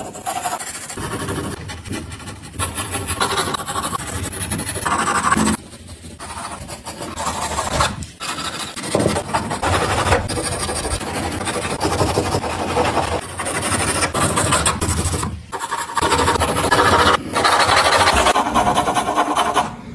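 Graphite pencil scratching on drawing paper: dense, continuous hatching and shading strokes, with a few short breaks.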